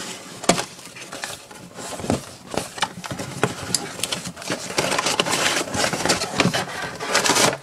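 Cardboard box and plastic figure packaging being handled and worked open: rustling and scraping with many sharp clicks and taps, busier and louder in the second half.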